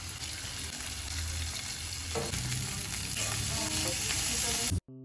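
Meat sizzling and frying in hot oil in a non-stick pan, a steady crackling hiss, turned over with silicone tongs. It cuts off suddenly just before the end, where a piano note begins.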